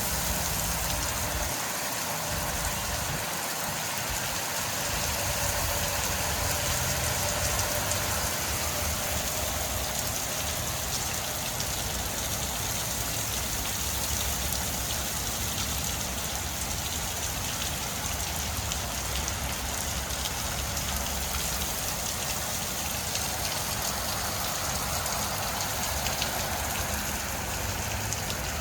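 Steady rain pouring down, an even hiss with no break or rhythm.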